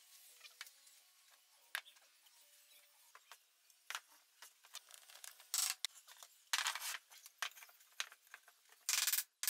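Wooden stool parts being handled and fitted together on a workbench: scattered light wooden knocks and clicks, with a few short scraping rubs of wood on wood. The loudest scrape comes near the end.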